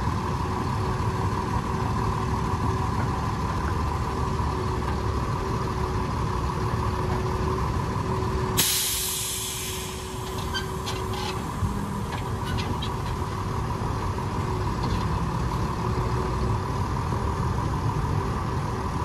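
Truck engine running steadily, with a sudden sharp air-brake hiss about eight and a half seconds in that fades away over a second or so, followed by a few light clicks.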